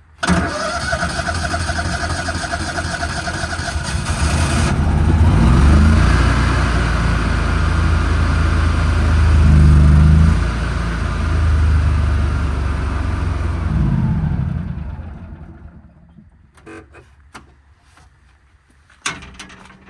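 Miller Trailblazer 325 engine-driven welder starting up: the starter cranks for about four and a half seconds, the engine catches and runs, then dies away about fifteen seconds in as the welder cuts off, which the owner thinks may be lack of fuel.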